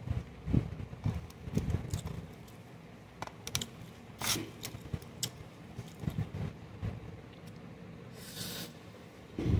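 Eating rice by hand: fingers mixing and scooping rice on a steel plate, with soft irregular thumps and clicks, then a mouthful being eaten with mouth noises and a short breathy rush about eight seconds in.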